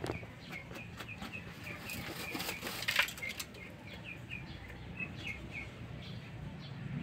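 Sussex rooster dust bathing, its wings flapping and scuffing in loose dirt, with a louder wing flap about three seconds in. A small bird chirps over and over, a few times a second.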